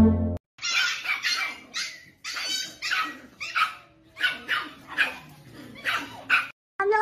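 Small dog barking in a rapid series of about a dozen sharp, high barks, roughly three a second.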